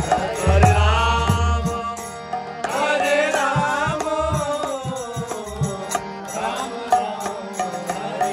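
Devotional kirtan: a male voice singing the holy-name chant over a harmonium's sustained reed chords. A hand drum and light, regular high ticks keep time beneath.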